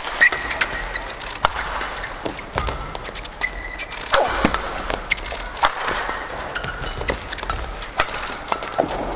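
Badminton doubles rally: sharp racket hits on the shuttlecock, mixed with players' shoes squeaking and thudding on the court.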